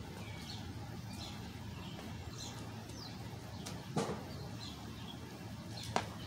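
Small birds chirping in short falling calls over a steady low outdoor rumble, with two sharp slaps of a jump rope on the pavement, about four seconds in and near the end.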